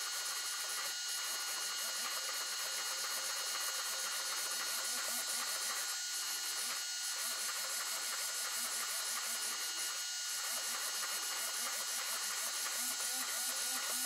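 Two RC servos, a Hextronic HX12K and a JX PDI-6221MG, sweeping their arms back and forth together: their small motors and gear trains whine and buzz steadily, with a fast regular pulsing.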